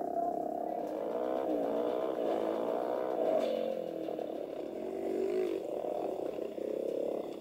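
150cc dirt bike engine running under throttle while being ridden, its pitch rising and falling repeatedly as the rider works the throttle and gears.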